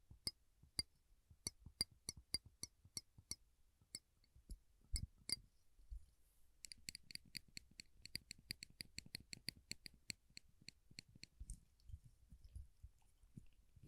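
Small silver metal clips being pressed and released close to the microphone, giving a run of sharp metallic clicks. The clicks come about three a second at first, thin out with a couple of duller knocks a few seconds in, then pick up into a faster run in the middle.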